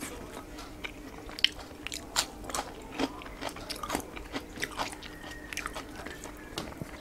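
Eating rice and curry by hand: fingers squishing and mixing rice on a plate, with chewing, heard as scattered small irregular clicks and crackles.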